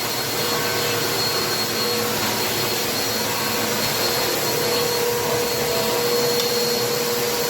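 Bissell AeroSwift Turbo Compact upright vacuum cleaner running steadily: a dense rush of air with a constant high motor whine.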